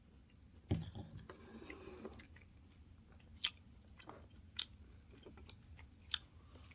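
A person chewing and biting food close to the microphone, with a thump about a second in and a few sharp mouth clicks later on, over a faint steady high-pitched whine.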